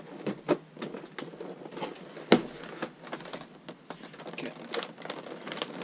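Cardboard box and clear plastic blister packaging being handled: scattered crinkles and small clicks, with one sharp knock a little over two seconds in.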